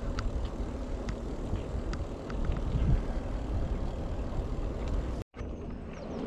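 Ride noise from an e-bike under way: wind rumbling on the microphone and tyres rolling, with scattered small ticks. The sound cuts out for a moment about five seconds in.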